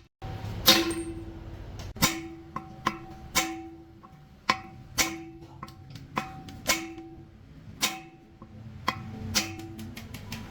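A hammer striking a metal part about a dozen times at an uneven pace. Each blow rings briefly at the same pitch.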